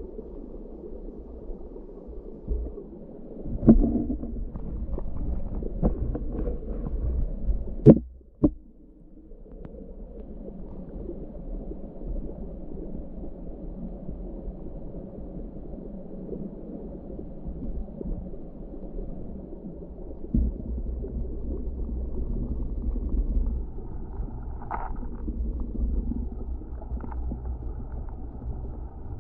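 Mountain stream water flowing and gurgling, heard dull and low with a deep rumble, broken by a few sharp knocks about four and eight seconds in.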